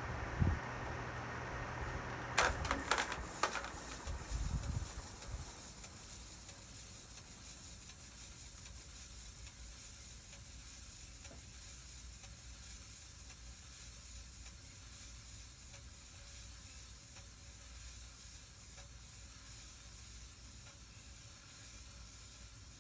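CEC Commander vintage ceiling fan running on high, a steady whir with a low motor hum. About two and a half seconds in come a few sharp clicks and knocks, and the hum stops. The remaining whir then slowly fades away.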